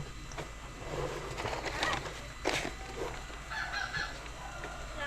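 Domestic fowl calling several times in short, separate calls.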